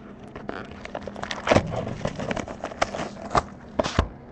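Hands opening and handling a cardboard box of trading card packs on a table: scraping and crackling of cardboard and foil wrappers, with several knocks as things are set down. The loudest knock is about one and a half seconds in, and a low thump comes near the end.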